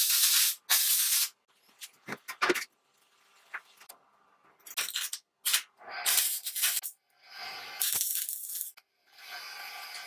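Electric arc welding on a steel tube frame: a crackling sizzle in several short bursts separated by pauses, with a couple of light knocks about two seconds in.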